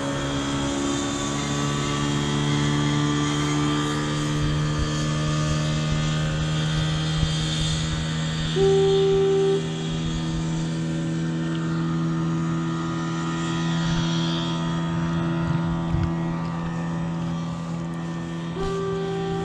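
Kayak thruster motor running at a steady speed, a constant hum with a whine above it, over a steady hiss of water and wind. A short single-pitch beep sounds about halfway through.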